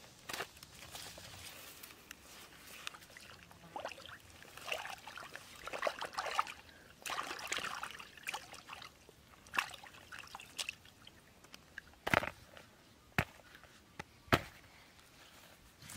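Water sloshing and trickling as fish are rinsed in a woven bamboo basket dipped in shallow river water, in irregular splashes that are busiest mid-way. A few sharp knocks come near the end.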